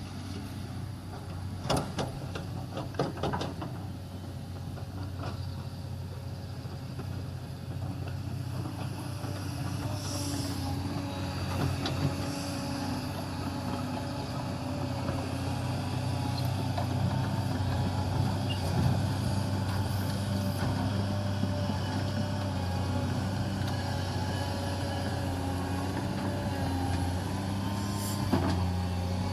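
Caterpillar 336D L hydraulic excavator's diesel engine running under load, its pitch shifting as it works, with a few sharp knocks about two and three seconds in and again near the end.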